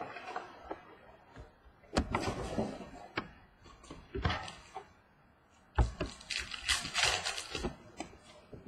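Handling and opening a sealed box of football trading cards and its packs: irregular rustling and crinkling of wrapper and card packs, with a sharp knock about two seconds in and another near six seconds, then about a second of crinkling.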